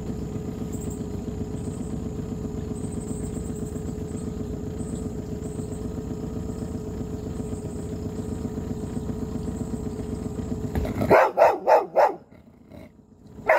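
Boat motor running steadily, stopping abruptly about eleven seconds in. Right after, an Australian cattle dog barks several times in quick succession, with one more bark at the very end.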